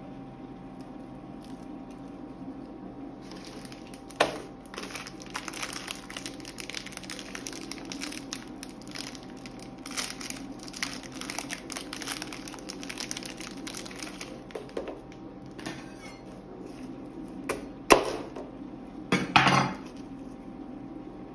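Many small light ticks and crackles as chocolate shavings are scattered onto the whipped cream and metal plate, with a sharp knock about four seconds in. Near the end comes a knock, then a short crunchy crackle as a B-ready wafer bar is snapped. A steady low hum runs underneath.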